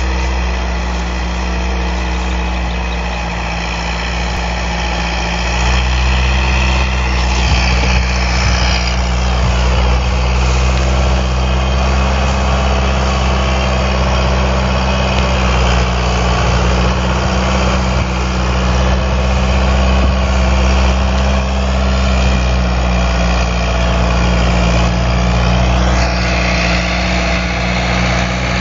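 Fiat 766 tractor's diesel engine running steadily, getting louder about six seconds in as the tractor comes closer.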